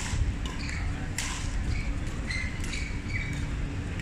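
Basketball game on an indoor court: sneakers squeaking on the hardwood floor, with sharp knocks of the ball at the start and about a second in, over a low rumble of the hall.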